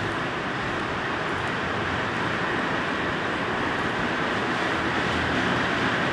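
Heavy rain pouring down as a steady, dense hiss, slightly louder in the second half.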